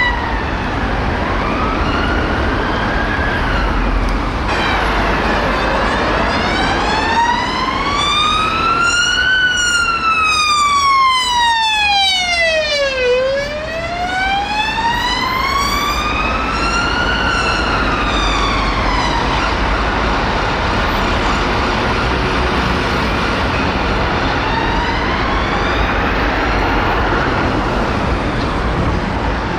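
Emergency vehicle siren on a slow wail, the pitch rising and falling over about four seconds each way. It is clearest through the middle of the stretch and fainter near the start and end, over steady road traffic noise.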